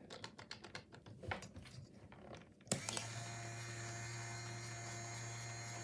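Small plastic clicks and taps as the toy robot head's cam and eye mechanism is handled with its motor stopped, then a sharp click about three seconds in and the kit's small electric motor starts up, running with a steady hum.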